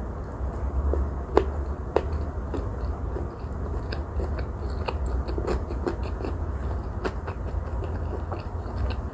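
Close-miked chewing of a Vietnamese fresh spring roll, with soft, wet chewing and small crisp clicks from the shrimp and raw vegetable filling (cucumber, carrot, lettuce). A sharper click about a second and a half in and another at two seconds stand out, over a steady low hum.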